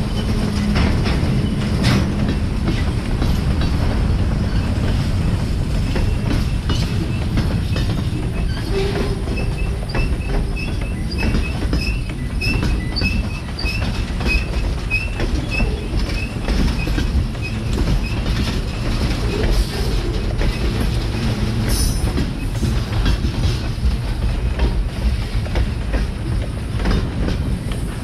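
A loaded freight train's cars roll past close by: a steady low rumble with the clatter of steel wheels over the rail.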